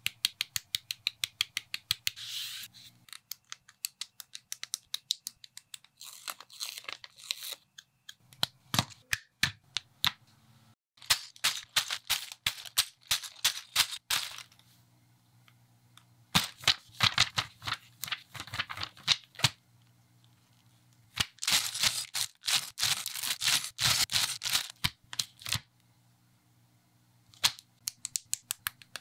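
Rapid, rhythmic clicks and snips of hard plastic: flush-cut nippers snipping model-kit parts from the sprue, plastic parts bags rustling, and building bricks snapping together, cut into a beat with a few short pauses.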